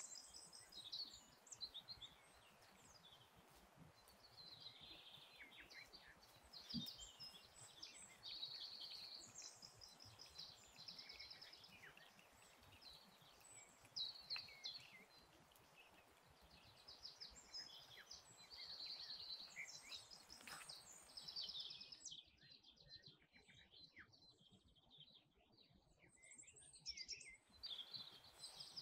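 Faint songbirds singing in repeated short chirping phrases over quiet woodland ambience. The birdsong falls away for a few seconds near the end.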